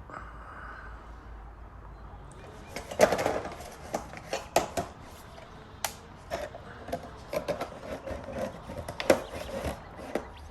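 Handling noise: irregular clicks and taps of parts being handled, starting about three seconds in, with the loudest knocks near the start of the run and near the end.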